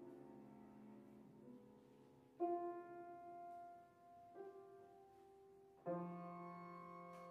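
Quiet contemporary improvised music for piano and cello: piano notes or chords struck three times, about two seconds apart, each left to ring and fade over held tones.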